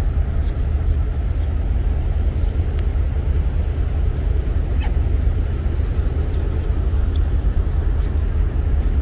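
Steady low rumble of a docked ferry's machinery, heard from the open upper deck, with wind noise over it.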